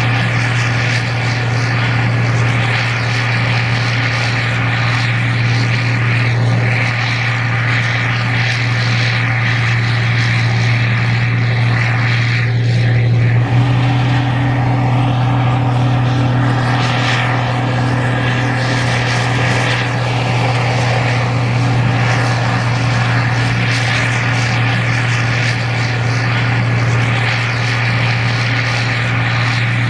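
Gleaner R52 combine running steadily while harvesting corn: a loud, even engine and machinery drone, with a small shift in tone a little under halfway through.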